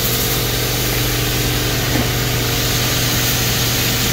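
Blueberry packing-line machinery running steadily: a vibratory feeder chute and roller conveyor give a constant low hum under an even mechanical whir.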